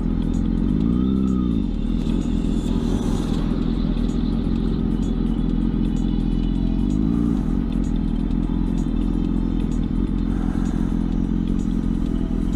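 Motorcycle engine running at low speed in slow traffic, with a short rise and fall of revs about a second in and a smaller one around seven seconds in.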